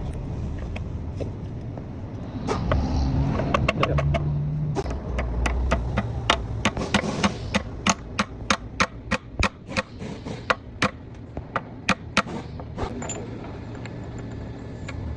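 Rapid hammering during gearbox bearing work: a run of sharp knocks, about three a second, for several seconds, after a few scattered blows and over a steady low hum.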